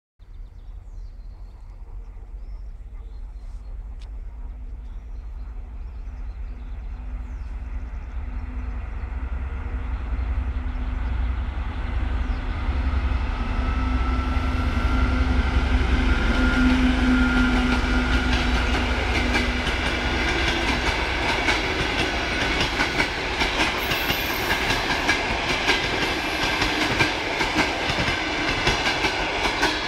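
TEP70 diesel passenger locomotive approaching and passing, its diesel engine's low drone growing steadily louder until it goes by past the halfway point. Then the passenger coaches follow, their wheels clattering over the rail joints in quick clicks.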